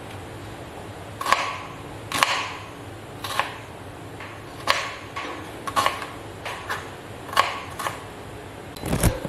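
Kitchen knife chopping a small red onion on a cutting board: about a dozen sharp, irregular knocks of the blade striking the board, with a heavier knock near the end.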